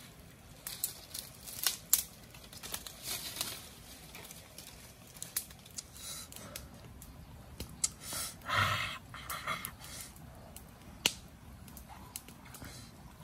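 Sharp clicks and short rustles of wooden sticks and dry forest litter being handled, with a louder burst of rustling a little past the middle.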